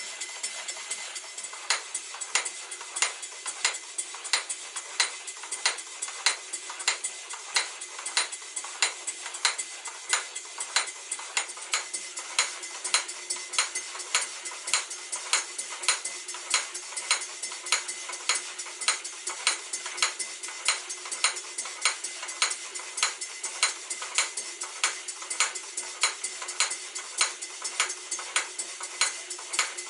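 Stuart Victoria model steam engine running and driving its belt-driven model workshop machines: a steady hiss with a regular rhythm of light metallic clicks, about two to three a second.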